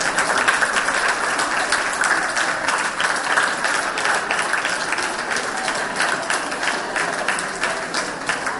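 A group of schoolchildren clapping: a steady round of applause, many hands clapping irregularly.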